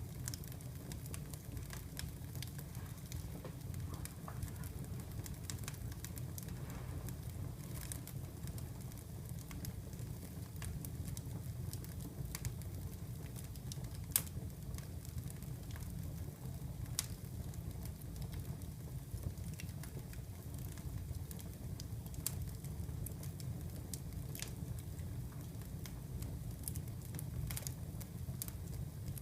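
Wood fire in a fireplace crackling, with a steady low rumble under scattered sharp pops and snaps; the loudest pop comes about halfway through.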